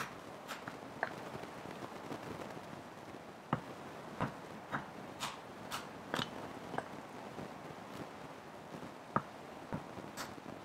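Small hatchet chopping a stick of firewood held upright on a wooden stump chopping block: a series of light, sharp chops at uneven spacing, several in quick succession about half a second apart in the middle.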